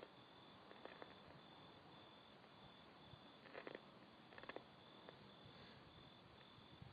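Near silence: a faint steady hiss with a faint high chirp repeating about twice a second, and a few brief soft rustles.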